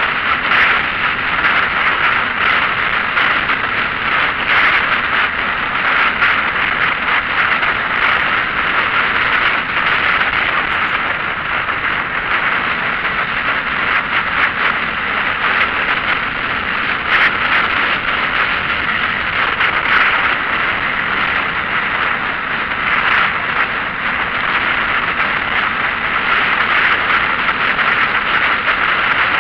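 Steady rushing road and wind noise of a vehicle travelling along a road, with no clear engine note and no sudden events.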